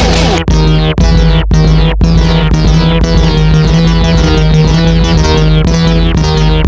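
Loud synthesizer and keyboard music with a quick repeating pattern, cutting out briefly four times, about half a second apart, in the first two seconds.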